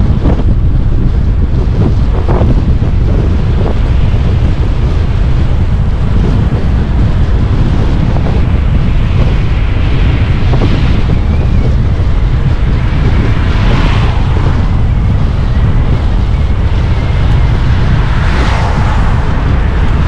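Heavy wind buffeting the microphone while riding at speed on a Stromer ST2 speed e-bike: a loud, steady low rumble, with a few brief swells of higher hiss about halfway through and near the end.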